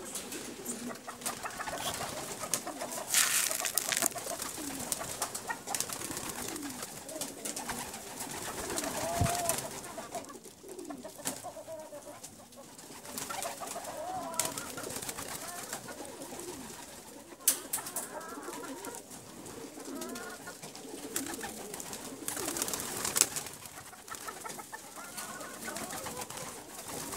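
Domestic pigeons cooing repeatedly in a loft, with a few brief loud rustles of wing flaps.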